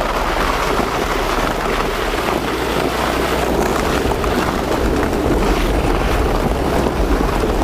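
Steady rushing noise of wind buffeting the microphone and a sled scraping over packed snow as it is towed along the road behind a car.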